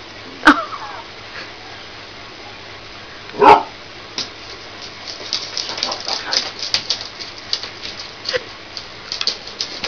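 Puppy giving short yips while a kitten chews on it: one sharp yip about half a second in and a louder one about three and a half seconds in. Quick scratchy clicks and rustles follow from the play on the bedding.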